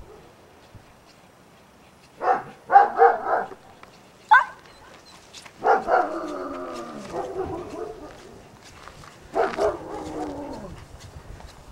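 German Shepherd-type working dog barking: a quick run of about four short barks, a brief high yelp, then two longer drawn-out barks that fall in pitch.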